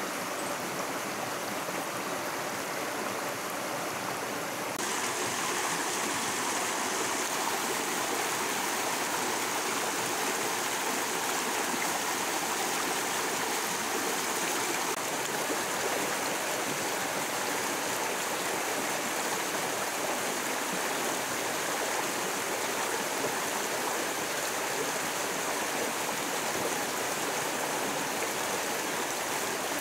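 Shallow rocky forest stream flowing over stones: a steady rush of water that grows louder and brighter about five seconds in.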